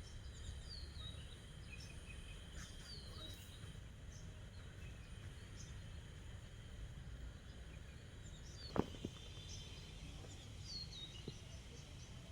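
Small birds giving short, high, falling chirps every few seconds over a faint, steady low background hum. A single sharp click a little past the middle is the loudest sound.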